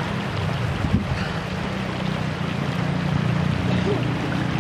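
Steady rushing of river water, with a continuous low rumble underneath.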